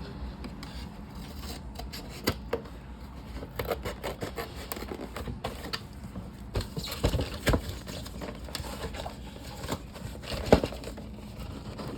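Cardboard gift-set box being worked open by hand: irregular scratching, rubbing and small clicks of fingers and nails on the packaging, with a sharper snap or click about ten and a half seconds in.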